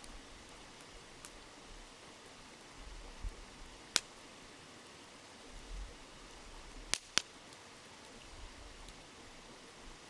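Wood campfire crackling, with a sharp pop about four seconds in and two quick pops near seven seconds, over the steady murmur of a flowing river.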